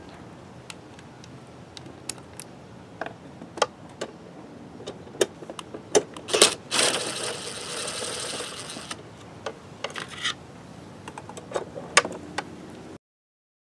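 DeWalt 20V cordless impact driver running on a screw of the air filter housing, for about two seconds, then again in a short burst about a second later. Sharp clicks and knocks of the tool and bit against the plastic housing come before and after.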